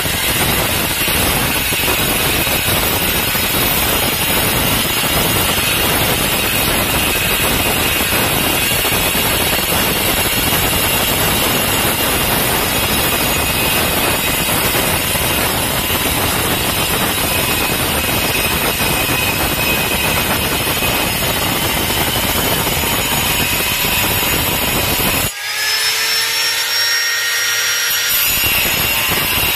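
Handheld angle grinder cutting a porcelain tile: a loud, steady grinding of the disc through the tile. About 25 seconds in the disc comes out of the cut and the motor's whine rises in pitch as it spins free, and about three seconds later it bites back into the tile.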